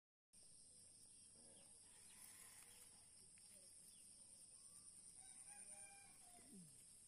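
Near silence: faint outdoor ambience with a steady high hiss, and a distant rooster crowing faintly about five to six seconds in.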